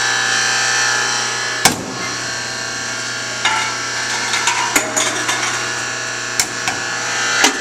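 Steady hum of a reverse vending machine, broken by a few sharp clicks and knocks from its container door and the container being handled, the loudest about two seconds in.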